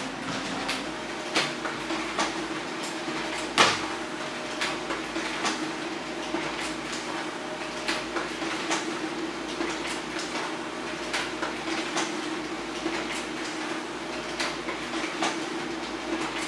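HP LaserJet Pro M402d laser printer running a print job: a steady motor hum with a stream of short clicks from the paper feed, and one sharper knock about three and a half seconds in.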